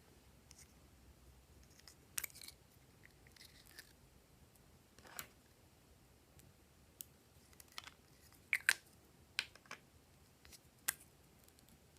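Slime being handled, giving off scattered short clicks and crackles that come more often and louder in the second half.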